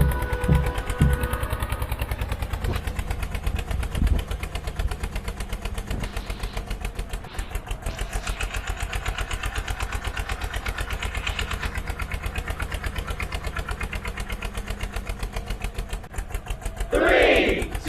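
Road roller's diesel engine running steadily with an even, fast throb. Near the end, loud shouting voices break in over it.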